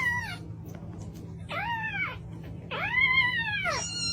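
A cat meowing four times, each call rising and falling in pitch; the third call is the longest and the last is short.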